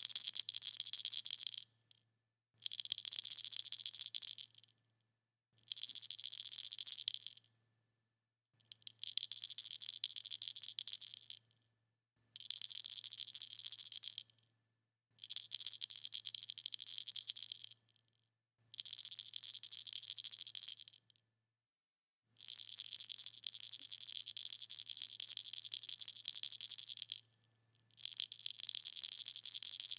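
Small sleigh bells shaken and rattled in repeated bursts of a few seconds each, with brief pauses between: a high-pitched jingling. The ninth burst, near the end, runs longest.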